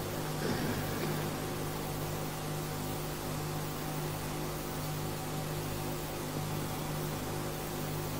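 Steady electrical hum with hiss underneath, the background noise of an old lecture recording while the speaker is silent, with a brief faint sound about half a second in.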